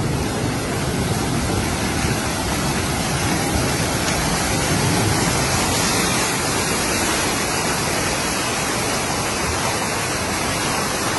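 Fast-flowing muddy floodwater rushing along a flooded road, a steady loud rush of water.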